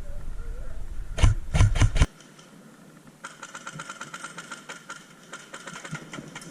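A few loud knocks over heavy handling rumble on the camera mic, then after a sudden drop, a rapid, even string of clicks lasting about three seconds: an airsoft electric gun firing on full auto.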